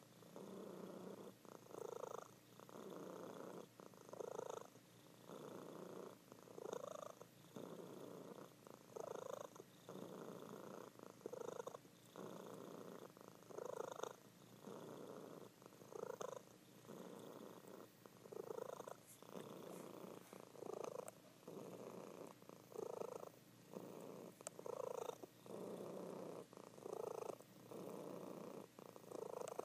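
A sleeping calico cat purring steadily, the purr swelling and easing with each breath in and out, about one breath every two to two and a half seconds.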